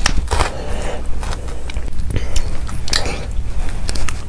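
Close-up eating sounds of a person chewing a mouthful of molten chocolate, with irregular wet mouth clicks. Near the end she bites into a piece of chocolate cake.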